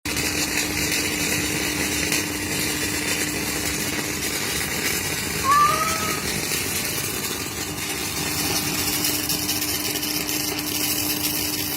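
MIG welding arc from a DUAL 500 multi-function welder: a steady crackling hiss over a low hum. About five and a half seconds in, a short high-pitched call rises and falls over it.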